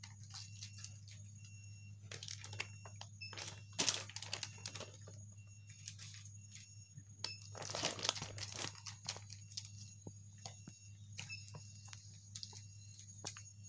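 Two cats eating from plastic bowls on a tiled floor: small wet chewing and lapping clicks, with a couple of louder crunching scrapes about four and eight seconds in.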